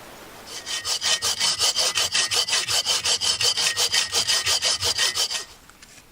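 Hand saw cutting through a log of very dense, hard firewood, in quick, even back-and-forth strokes for about five seconds before stopping.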